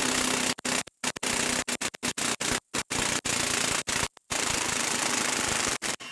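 Milwaukee M18 1-inch impact wrench hammering hard and rapidly as it drives a 10-inch lag screw into a wooden log round. It breaks off for an instant about four times and stops shortly before the end.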